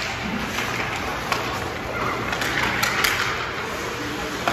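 Ice hockey play in an arena: sharp clacks of sticks on the puck and each other after a faceoff, over skates on the ice and spectators' voices, with a swell of noise about two to three seconds in.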